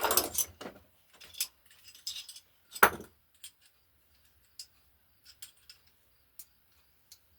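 Metal hand tools, wrenches, clinking and clattering as they are handled, with one louder knock about three seconds in and then scattered light clicks.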